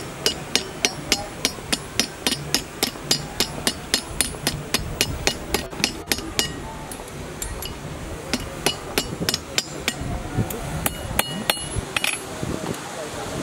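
Blacksmith's hand hammer striking hot steel held in tongs on an anvil: a quick, even run of blows, about three a second, for some six seconds, then a short pause and a few scattered blows.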